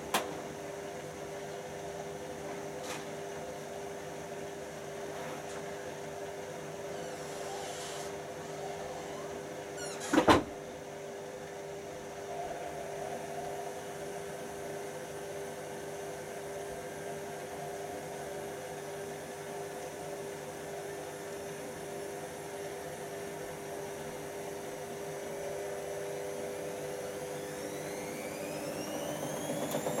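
Two washer-dryers, a Hotpoint WD440P and a Hoover Nextra, starting their spin cycles, with a steady motor hum as the drums turn slowly. There is a loud knock about ten seconds in. Near the end a motor whine rises in pitch as one drum speeds up towards 400 rpm.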